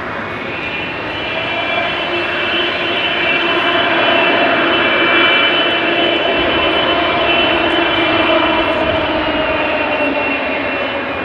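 Twin GE90-115B turbofans of an EgyptAir Boeing 777-300ER running as the airliner taxis past. A steady rushing noise carries a high whine of several tones and a lower hum. It grows louder over the first few seconds and eases a little near the end.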